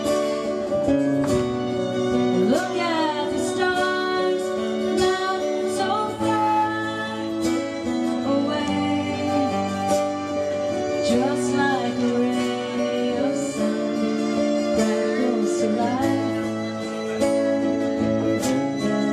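Live band music: acoustic guitar playing under a fiddle melody, the fiddle sliding up and down between notes.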